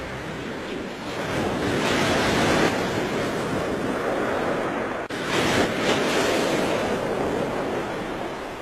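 A steady rushing noise like surf or wind, swelling twice, with a brief break about five seconds in.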